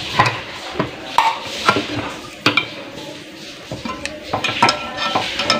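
Can-opener blade of a pair of kitchen scissors levering its way round the lid of a tin can: a run of sharp, irregular metallic clicks and scrapes, a few of them ringing briefly.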